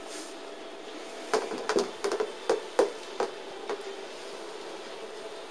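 A quick, irregular run of light clicks and knocks, about ten in two and a half seconds, starting just over a second in.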